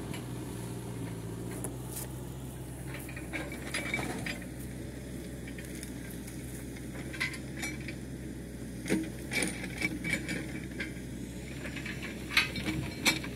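Scattered light clinks and knocks, a dozen or so at uneven intervals, typical of a bucket and its handle being handled, over a steady low engine hum.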